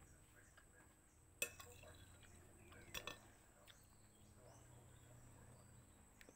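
A metal fork clinks and scrapes against a ceramic plate of spaghetti during quiet eating, with two sharp clinks, one about a second and a half in and another about three seconds in.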